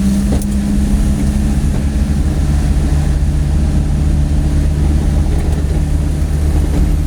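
Motor vehicle engine running steadily in slow traffic, a low hum that drops slightly in pitch about two seconds in.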